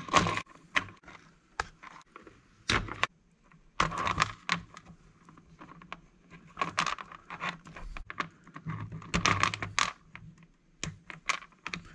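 Irregular clicks and clacks of hard plastic RC truck parts being handled, with snaps as the plastic suspension and steering links are popped off their ball studs, in several short clusters.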